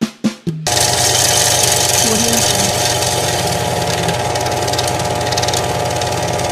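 A brief snicker, then a loud, steady machine-like drone with a fast rattle and hiss that starts suddenly under a second in and runs on unbroken.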